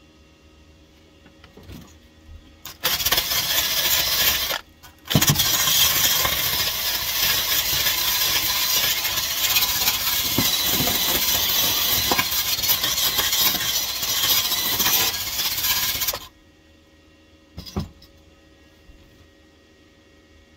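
Wire wheel on a handheld power tool spinning against the welded steel floor pan, scrubbing it back to bare metal. It runs in a short burst about three seconds in, then a long run of about eleven seconds that stops suddenly, followed by a single click.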